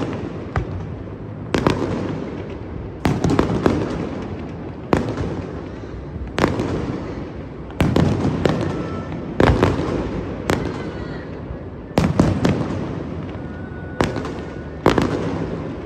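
Aerial fireworks shells bursting, one sharp bang every second or two with occasional quick doubles. Each bang trails off in a long echoing rumble.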